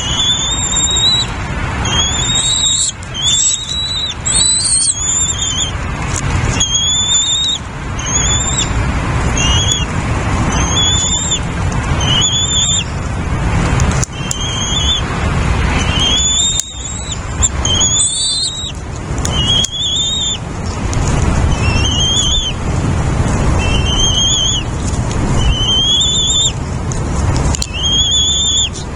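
A bird calling over and over, about once a second, each note a short, high, thin whistle that rises and then falls. Under the calls runs a steady low rumble.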